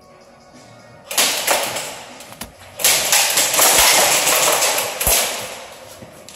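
Airsoft guns firing in rapid bursts, each starting suddenly: a short burst about a second in, then a longer one of about two seconds from near the three-second mark that fades out, with a few dull thumps among the shots. Faint background music lies underneath.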